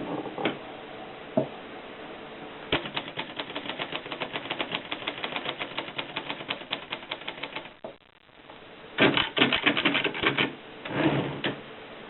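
Japy Script typewriter being typed on: a fast, even run of key strikes, roughly eight to ten a second, for about five seconds. After a brief pause comes a louder, denser clatter of strikes, then one shorter burst near the end.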